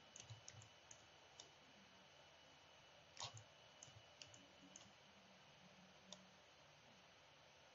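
Faint, scattered computer mouse clicks over near-silent room tone, about nine in all, the loudest a little after three seconds in.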